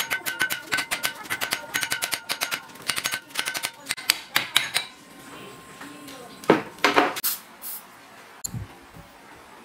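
Rapid metallic tapping and clinking with a ringing tone as the water pump's housing is worked loose, thinning to a few single knocks. About two-thirds in, two or three short hisses from an aerosol spray can.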